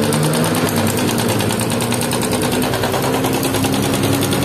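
Yamaha Jupiter MX 135's liquid-cooled single-cylinder four-stroke engine running steadily with a loud, fast clatter from the top end. The clatter comes from a stretched cam chain whose tensioner has run out of travel.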